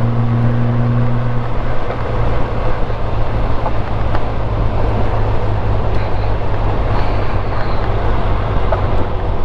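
Honda Gold Wing GL1500 flat-six engine running at road speed under steady wind and road noise; the engine note drops a little about one and a half seconds in.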